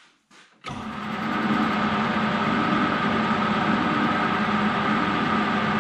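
Metal lathe switched on less than a second in: the motor and gearing bring the chuck up to speed within about a second, then run steadily with a constant whine.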